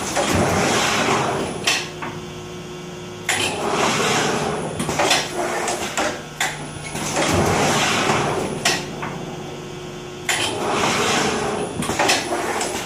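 Svecia SMD screen printing press running through its print cycles, with squeegee and flood bar at 75% speed: a rushing mechanical noise with clicks and knocks that comes back about every three and a half seconds, with a steady hum in the quieter stretches between.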